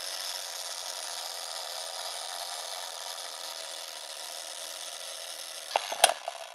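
Film projector sound effect laid over a countdown leader: a steady, rasping mechanical whir, with a few sharp clicks about six seconds in before it fades out.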